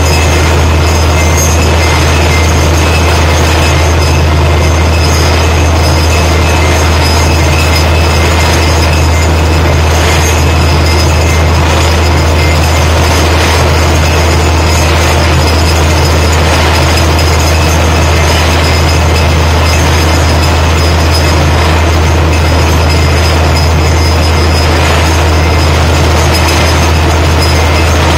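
Borewell drilling rig running flat out, its air compressor blowing water and air up out of the borehole in a steady gush, over a deep, constant engine drone with a thin high whine. The sound does not change.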